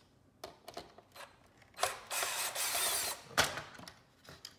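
Cordless drill-driver run briefly, for about a second and a half, to drive out a screw in a plastic housing. A few light clicks come before it, and one sharp knock follows.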